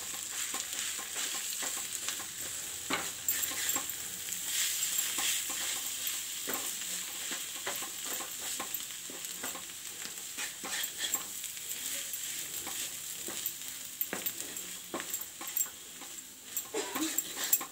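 Wooden spatula stirring and mashing boiled potato filling in a coated frying pan, with irregular scrapes and taps against the pan and a light sizzle of frying on the heat.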